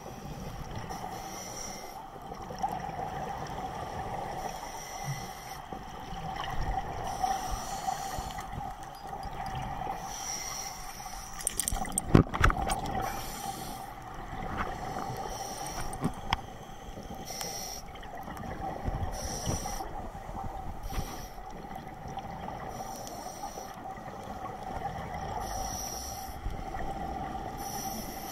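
Scuba breathing underwater through a regulator: breaths in slow cycles, each a hiss with bubbling exhalations, over a steady hum. A cluster of sharp knocks comes about twelve seconds in, the loudest moment.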